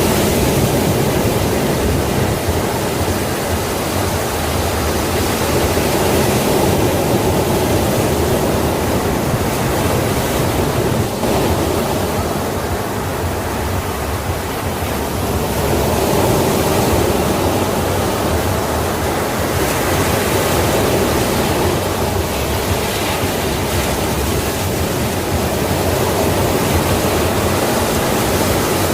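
Sea waves washing on the shore as a continuous roar of surf, swelling and easing slowly with a softer lull about halfway through.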